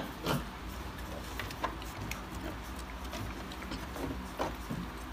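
Several piglets giving occasional short, soft grunts, with small clicks and shuffling of their trotters on a concrete floor, over a steady low hum.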